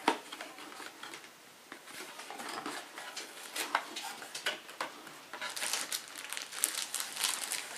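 Cardboard packaging being handled and slid out of a box, with scattered light scrapes and taps; from about five seconds in, denser crinkling of the clear plastic bag around the owner's manual.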